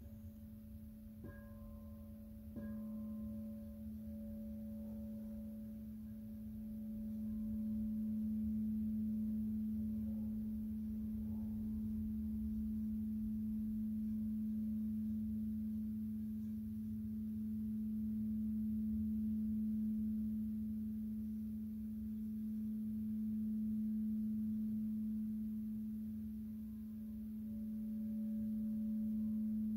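12-inch frosted quartz crystal singing bowl tuned to A, tapped twice in the first few seconds and then played around its rim, singing one steady pure tone that swells and eases slowly.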